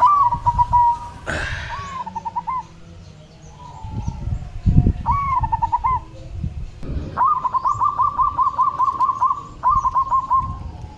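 Zebra dove (perkutut) cooing: several short phrases, then a long run of quick, evenly repeated coos from about seven seconds in. A brief rustle about a second in and a low thump around the middle.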